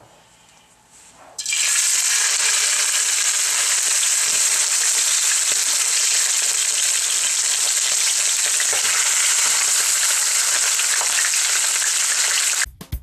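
Wild turkey legs sizzling loudly in hot coconut oil in a skillet as they are laid in to brown. The sizzle starts suddenly about a second and a half in and cuts off abruptly near the end.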